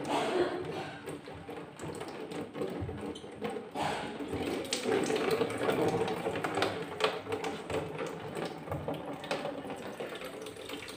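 Old engine coolant draining out of the drain-bolt hole of a Honda CB150R's liquid-cooled engine: a thin stream splashing into a container below, with a few sharp clicks and knocks.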